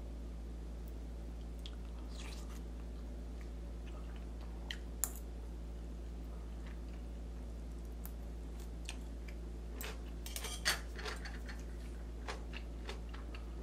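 Eating at the table: a spoon clinking in a ceramic bowl of oatmeal and metal chopsticks tapping on a glass dish of kimchi, with chewing. Scattered light clicks, busiest about ten to eleven seconds in, over a steady low hum.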